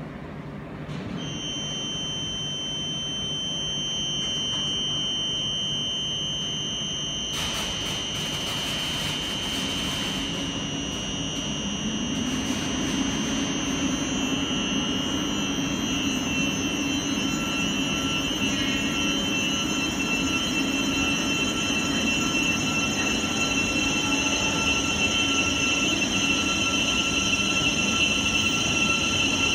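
Siemens Class 700 Desiro City electric multiple unit pulling away on third-rail DC supply: steady high-pitched whine from its traction equipment, with a burst of hiss for several seconds about a third of the way in. From about halfway a further tone and the low rumble of wheels on rail join, and the sound grows louder as it gathers speed.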